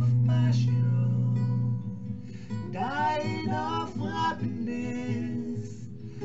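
Song with acoustic guitar and a voice singing: a held low note for about the first two seconds, then the singer comes in with a rising and falling melodic line.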